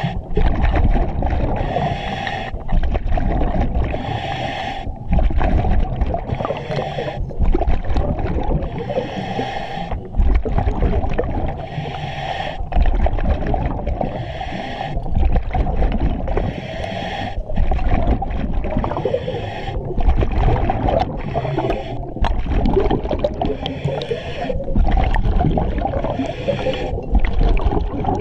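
A diver breathing on a scuba regulator inside an EXO-26 full-face mask, in a steady cycle about every two and a half seconds: a hiss on each breath in, then a low bubbling rumble as the exhaled air vents into the water.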